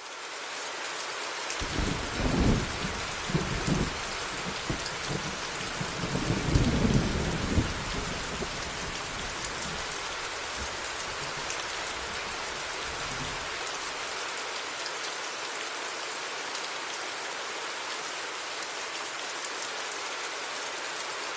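Steady rain falling, with low rolls of thunder rumbling for several seconds near the start and peaking twice, then the rain alone.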